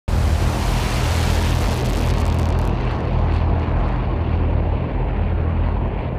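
F-22 Raptor's twin Pratt & Whitney F119 turbofan engines at high power on the takeoff roll: loud, steady jet noise with a deep rumble. The high hiss thins out after about two and a half seconds.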